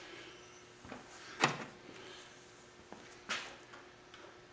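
Metal tools and compressor parts being handled: a few separate sharp knocks and clinks, the loudest about one and a half seconds in and another a little after three seconds.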